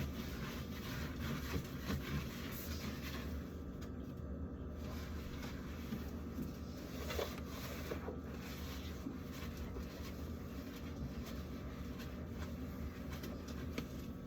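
Sponge scrubbing and wiping a fridge shelf, with irregular rubbing, scraping and light knocks.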